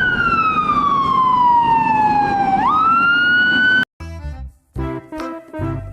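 Electronic toy siren: one slow wail falling in pitch, then sweeping quickly back up and holding, before cutting off abruptly about four seconds in. A bouncy children's tune follows.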